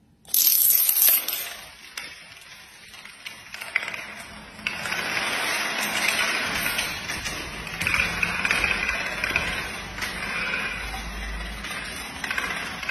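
Standing cards falling one after another in long domino chains: a rapid, continuous clatter of small clicks. It is loudest in a short burst just after the start, and steady through the rest.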